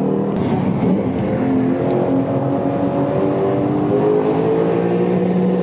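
Lexus RC F's 5.0-litre V8, heard from inside the cabin under hard acceleration. The engine note drops just after the start, then rises steadily in pitch for several seconds before dropping sharply again near the end.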